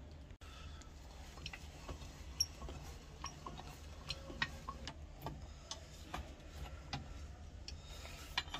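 Scattered light clicks and taps of metal tools and parts being handled at a bench vise as an electric drill is set into its jaws, over a faint low hum.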